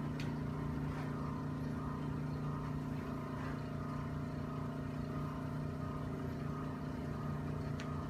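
Steady low machine hum, even in level throughout, with a few faint clicks: one just after the start, one about a second in and one near the end.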